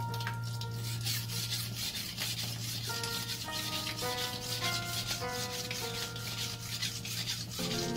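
A steel chef's knife blade being stroked back and forth across a wet whetstone, a rasping scrape repeated in a quick, even rhythm as the edge is sharpened.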